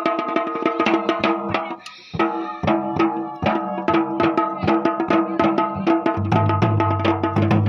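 Dhol and damau drumming in a fast, even rhythm of about five or six strokes a second, over a steady ringing tone. The playing drops out briefly about two seconds in, and a deeper low drone joins near the end.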